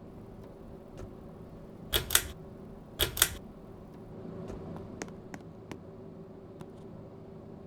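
53-inch Six's Fan Co. La Frontera ceiling fan running with a steady motor hum. Two loud double clicks come about a second apart, a couple of seconds in, followed by several lighter ticks.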